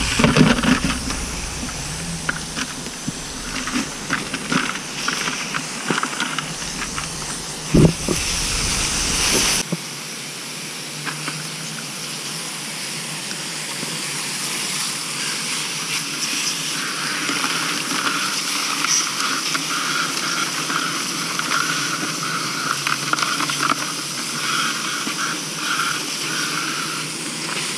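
Garden hose spray nozzle spraying water onto live crawdads in a plastic basket, a steady hiss of spray with water splashing and dripping as the crawdads are rinsed clean of mud. A single knock about eight seconds in.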